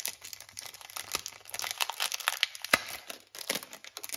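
Clear plastic packaging crinkling and crackling as a packet of paper die-cut embellishments is handled and opened, with one sharper crack about two-thirds of the way in.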